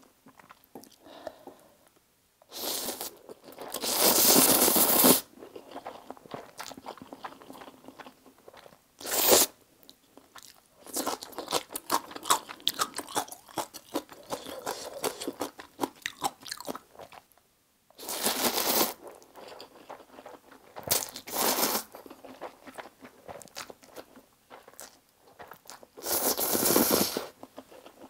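Close-miked eating of spicy fire noodles: several loud slurps of about a second each, with quick wet chewing clicks in between.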